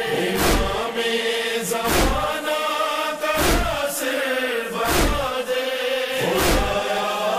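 Voices chanting a devotional song in unison with long held notes, over a deep drum hit about every second and a half.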